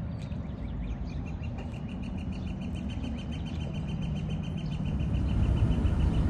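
A bird trilling: a fast, even run of high notes, about ten a second, lasting some five seconds. Underneath is a steady low rumble that grows louder near the end.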